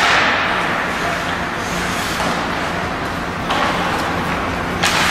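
Ice hockey play in an indoor rink: a steady noisy wash of arena sound over a low hum. The noise jumps suddenly about three and a half seconds in and again near the end.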